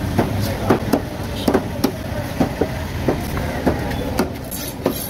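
Knife chopping through tuna flesh on a wooden board: sharp knocks at an uneven pace, about two to three a second, over a steady low traffic hum.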